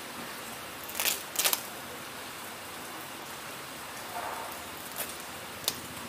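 Steady hiss of falling rain, with a few sharp taps: a cluster about a second in and single ones near the end.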